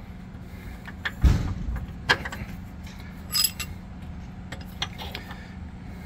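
Metal clinks and knocks as a mounting bolt and a Monroe Magnum shock absorber's eye are worked into a steel shock-mount tab on a trailer axle. A heavier thump about a second in, then a few sharp ringing clinks.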